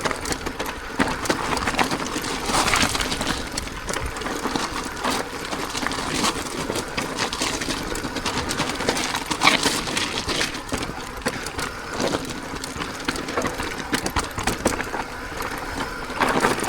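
E-mountain bike coming down a steep, rocky trail under hard braking: the disc brakes drag and grind while the bike and tyres clatter and rattle over the stones.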